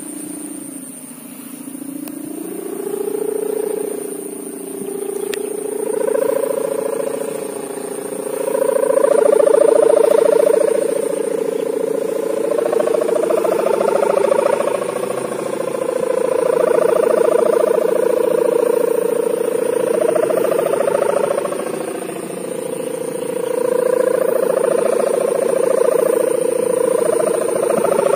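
The sendaren, a bamboo humming bow, on a large pegon kite droning in the wind. Its pitch climbs over the first few seconds, then wavers up and down and swells and fades as the gusts change.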